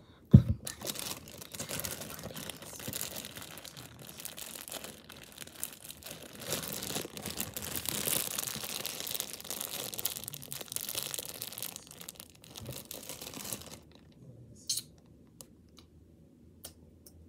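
Zip-top plastic bag of beaded slime crinkling and crackling as it is squeezed and kneaded by hand, stopping about three-quarters of the way through. A single sharp knock just after the start is the loudest sound; a few faint clicks follow near the end.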